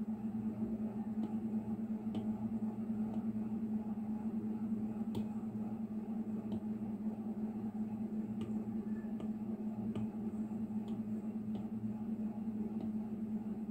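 Light ticks of an Apple Pencil tip tapping on an iPad's glass screen, irregular and roughly one a second, over a steady low hum.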